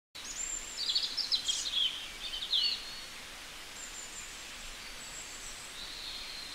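Birds chirping over a steady outdoor hiss. A quick run of short high chirps comes in the first three seconds, then only faint high calls over the background.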